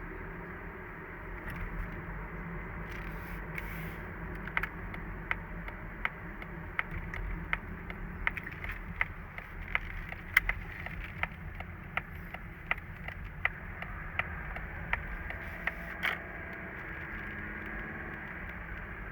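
Mazda CX-30 1.8-litre diesel under way, a steady low running rumble with a regular sharp click about every 0.7 seconds through the middle. Near the end a faint steady high tone comes in, the kind of recorder-like whistle from the engine bay that the owner is trying to trace.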